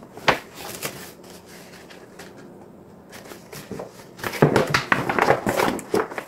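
Stiff paper shopping bag rustling and crinkling as it is handled and unfolded, in short crackles. It goes quieter about halfway through, then crinkles densely and louder near the end.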